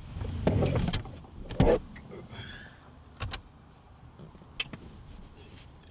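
Movement noise inside a parked car: rustling and shuffling, a heavy thump about a second and a half in, then a few sharp clicks.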